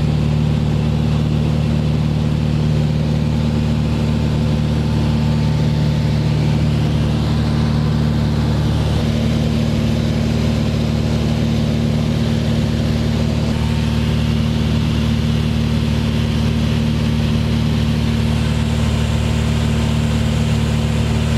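Cessna light aircraft's piston engine and propeller droning steadily in cruise, heard from inside the cabin.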